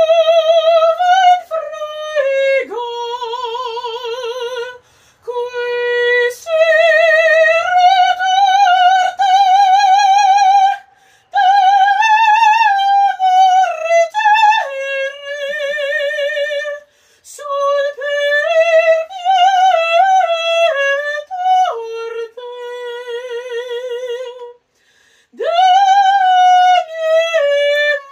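A woman singing opera-style, unaccompanied, holding long high notes with a wide vibrato. The song runs in several phrases broken by short pauses for breath.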